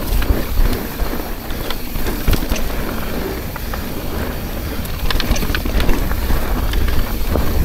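Mountain bike descending at speed on a downhill run: wind buffeting the microphone as a low rumble, with tyre noise and many scattered rattles and knocks from the bike over rough ground.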